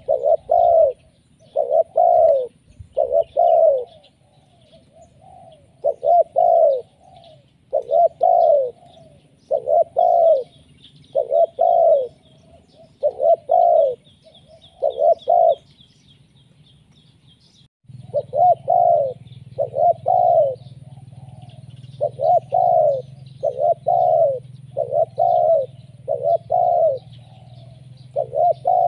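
Spotted dove (tekukur) cooing over and over in its rhythmic phrases, about one coo a second, with a short break a little past the middle. Faint high chirps of small birds sound underneath, and a low steady hum comes in about two-thirds of the way through.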